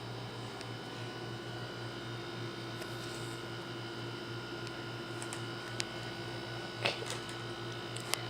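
Room tone: a steady low electrical hum, with a few faint clicks and one short rustle in the last couple of seconds.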